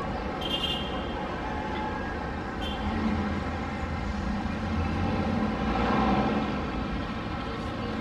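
City road traffic from a distance: a steady rumble of engines that swells around five to six seconds in as a vehicle goes by. Two brief high-pitched chirps come through, about half a second in and again near three seconds.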